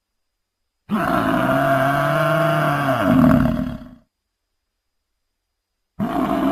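Creature sound effect built from bull, buffalo and bison recordings: one deep bovine bellow lasting about three seconds, its pitch dipping and rising near the end. After a pause of about two seconds, a second bellow begins near the end.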